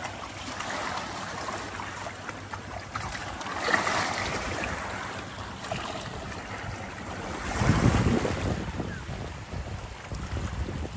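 Small waves washing against a stony shore, with wind buffeting the microphone; a stronger gust about eight seconds in.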